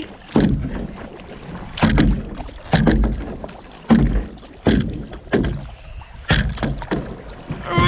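Kayak paddle strokes splashing into the water in quick succession, about one stroke a second, with the hull and paddle knocking and water rushing between strokes.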